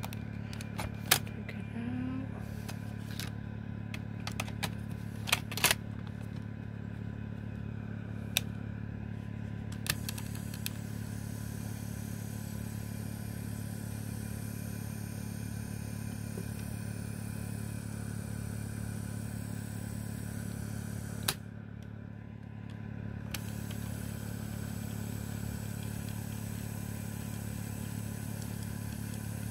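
Sony WM-FX425 Walkman's cassette transport running a tape, a steady low motor hum with tape hiss above it. Sharp clicks from handling the player come several times in the first ten seconds and once about two-thirds of the way through; the hiss briefly drops out after that click, then comes back.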